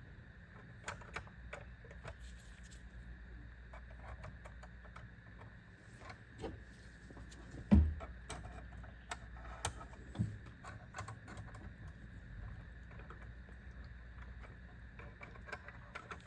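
Small plastic clicks and taps as the parts of a 1:18 scale plastic toy halftrack are handled and fitted, with a louder dull thump about eight seconds in and a softer one about two seconds later, over a faint steady hum.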